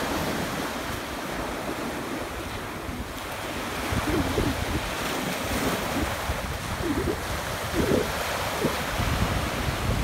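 Sea surf breaking and washing up the beach, with wind gusting on the microphone.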